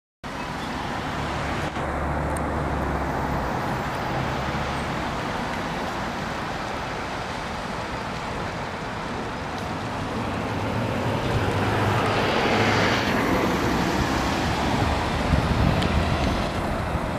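Cummins Westport B6.7N natural-gas engine of a Grande West Vicinity B30G transit bus pulling away under power, a steady drone that grows louder about twelve seconds in as the bus comes toward the microphone.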